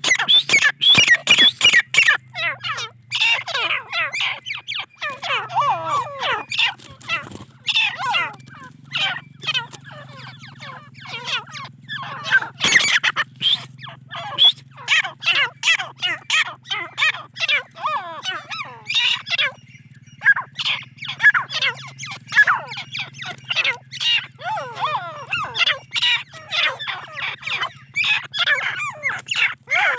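A flock of young grey francolins, Deccani–Irani cross chicks, calling: many short, sharp chirps and squeaks overlapping in rapid runs, with a lull about ten seconds in and a short gap around twenty seconds.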